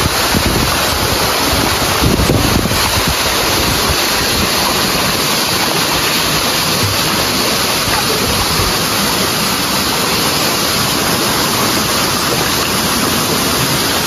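Waterfall: a loud, steady rush of falling water, an even roar with no breaks.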